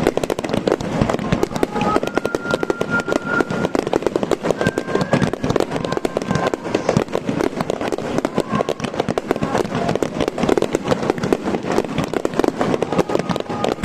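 Fireworks display, with a dense, unbroken run of rapid bangs and crackling from many shells bursting close together.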